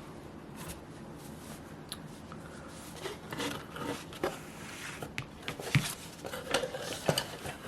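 A cardboard box and the scissor-sharpening tool inside it being handled: light rubbing with scattered soft clicks and knocks, busier after about three seconds.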